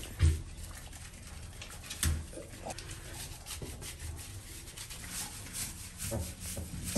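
Hands scrubbing and rubbing shampoo lather into a German Shorthaired Pointer's wet coat, a soft wet rustling, with two dull thuds about a quarter second and two seconds in.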